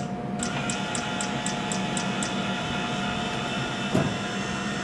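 Biodex Balance System SD platform actuator motor running steadily, an even mechanical hum as it drives the balance platform down toward its lowest position. A run of light high ticks, about four a second, sounds in the first two seconds, and a single knock comes about four seconds in.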